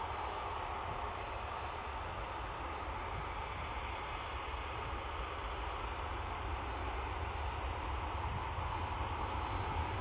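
Jet airliner engine noise, a steady rumble and rush that rises slightly near the end.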